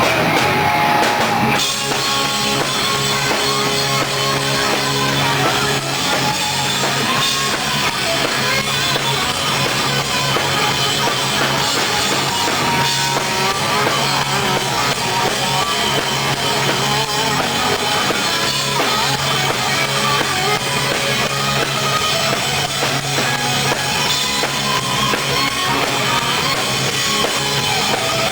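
Hard rock music played by a band, with a full drum kit and electric guitar, continuous and loud.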